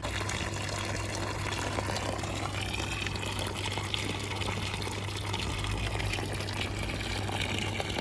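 Water running in a steady stream from the curved spout of a cast-iron Roman nasone drinking fountain, splashing onto the stone below.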